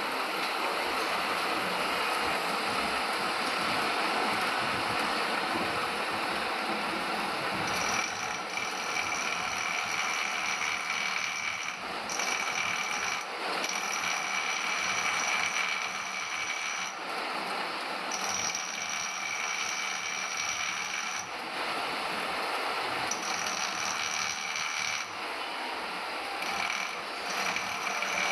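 Metal lathe running while turning a shaft, a steady machining noise, with a high-pitched whine that comes and goes in stretches of a few seconds from about eight seconds in.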